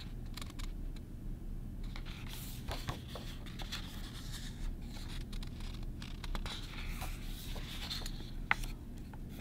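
Pages of a hardcover picture book being turned and handled: paper rustling with small taps and scrapes from the hands, over a low steady hum.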